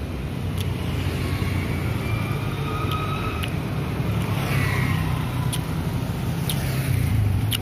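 A motor vehicle engine running close by amid street traffic, a steady low hum that grows a little louder near the end, with a few faint clicks.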